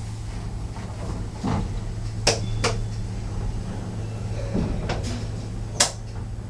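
Passenger lift in operation: a steady low hum with sharp mechanical clicks, two close together about two seconds in and one near the end.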